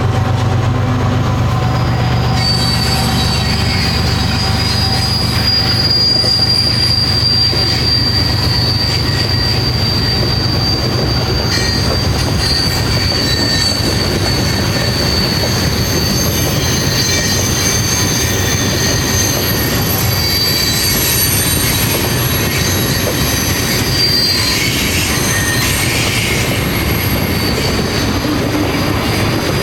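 Freight train cars rolling past on the CN main line, steel wheels squealing against the rail in several steady high-pitched tones over a continuous heavy rumble.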